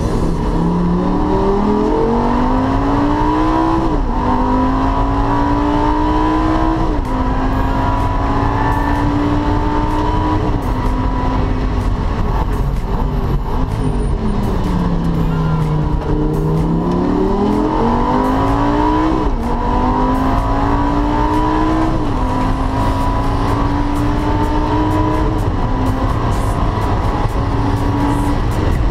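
Lamborghini Gallardo Super Trofeo's V10 race engine heard from inside the cabin, climbing in pitch through the gears with a quick upshift every three or four seconds. From about twelve seconds in the revs fall away through downshifts under braking, then it accelerates up through the gears again.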